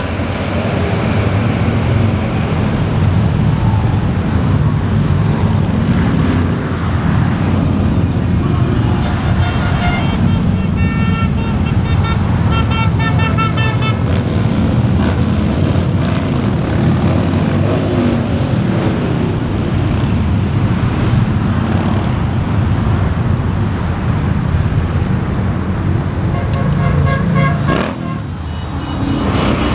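A stream of motorcycles and cars passing on a multi-lane highway, with a steady rumble of engines and tyre noise. Horns sound for a few seconds about ten seconds in and again briefly near the end.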